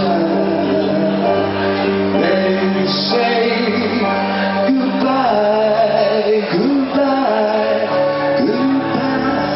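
Live band playing a song on electric guitars, bass, drums and keyboards, with a male singer.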